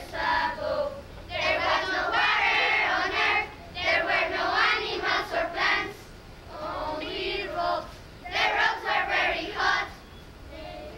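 A group of children singing together in phrases of a second or two, with short breaks between them.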